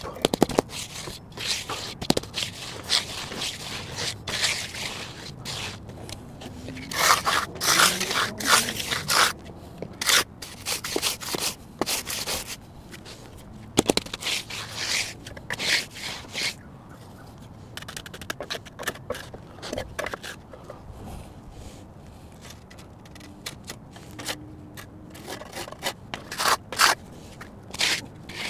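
Magnesium hand float scraping over the surface of fresh concrete in irregular strokes, with short pauses between passes.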